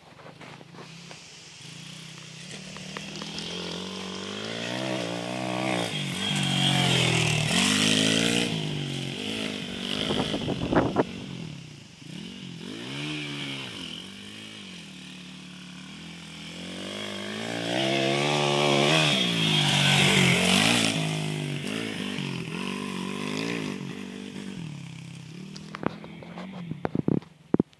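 Wels 140 pit bike engine revving up and down through the gears as it is ridden around a dirt track. It grows loud as it comes close about a quarter of the way in and again past halfway, fading between passes. A few knocks near the end come from the phone being handled.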